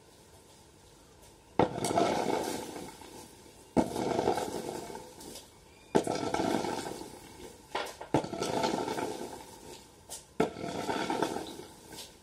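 A rake dragged through a layer of arecanuts (betel nuts) spread out to dry, turning them over. Each of the five strokes starts with a sharp knock of the rake blade, followed by a rattling clatter of nuts rolling over one another that fades over about a second and a half. The strokes come a little over two seconds apart, after a quiet start.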